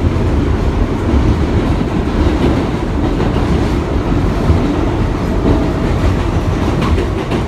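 Bombardier R62A subway car running at speed through a tunnel, heard from inside the car: a loud, steady rumble of wheels on rails with a few faint clicks over rail joints.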